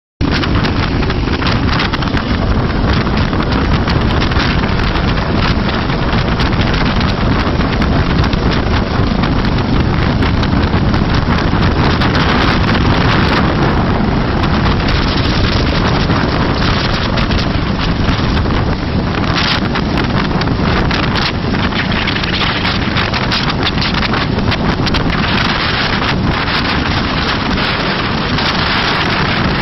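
Helicopter running close by: a loud, steady rush with heavy wind buffeting the microphone.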